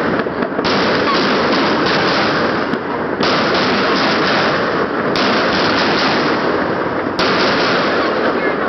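Profi Terminator fireworks battery firing: a dense, continuous run of crackling bangs as its shots burst in quick succession.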